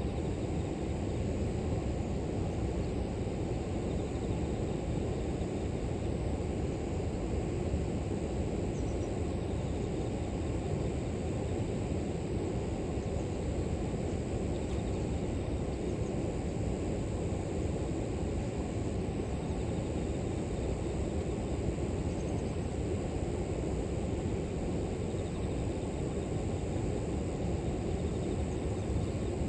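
River water flowing with a steady low rush, over a constant thin high trill of grass insects.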